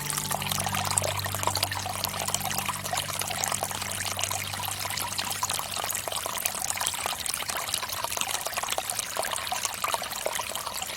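Water from a bamboo fountain pouring and trickling steadily. Low sustained music tones fade out over the first half.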